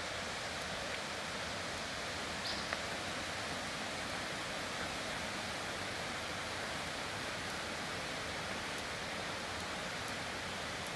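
Steady rush of a mountain creek flowing over rocks, with one brief high chirp about two and a half seconds in.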